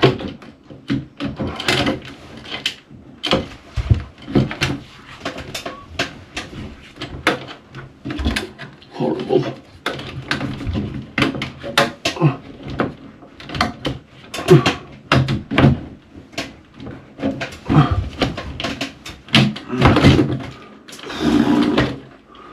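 Repeated irregular clicks, knocks and scrapes of a flat class II panel ceiling light fitting being pushed and worked onto its ceiling mounting bracket.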